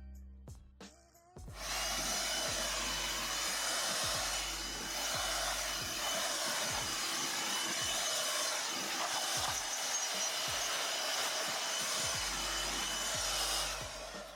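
A power tool runs steadily for about twelve seconds, a loud even hiss with a few high steady tones, over background music with a beat.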